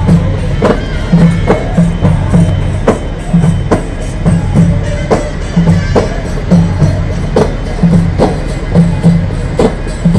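Rhythmic percussion music: a steady drumbeat with hand percussion and tambourine-like jingles.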